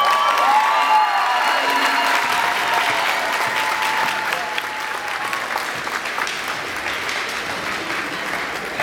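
Crowd applauding after a martial arts demonstration, with rising cheers at the start. The clapping thins and fades toward the end.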